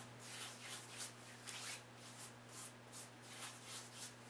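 Faint, soft swishing pats of hands working aftershave onto the face, about three or four a second, over a steady low electrical hum.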